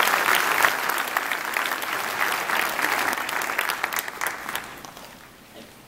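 A congregation applauding. The clapping dies away about four and a half seconds in.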